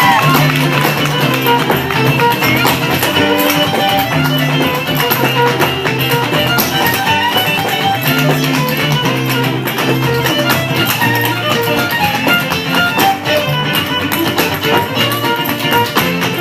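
Live band music with a steady beat, guitar to the fore and a fiddle alongside.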